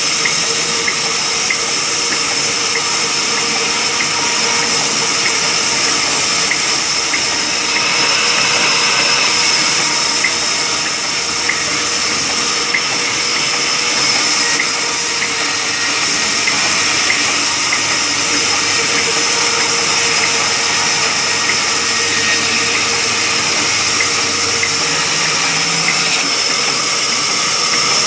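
Large vertical band sawmill running and ripping a thick wooden slab as it is pushed through the blade, a loud steady hissing whine.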